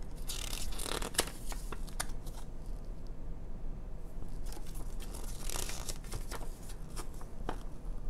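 Paper rustling and crinkling as a small folded instruction manual is opened and its pages handled, louder near the start and again about two-thirds of the way through, with a few light ticks.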